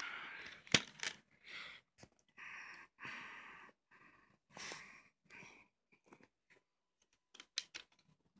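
Breathing close to the microphone in short breathy puffs, with a sharp click about a second in and a few smaller clicks near the end, from a plastic CD jewel case being handled.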